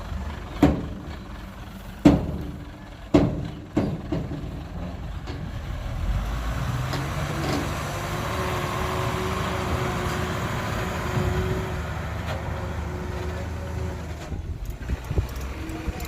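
Heavy dump truck diesel engine running, with four sharp bangs in the first four seconds. About six seconds in the engine grows louder and steadier, as if working under load, and eases off again near the end.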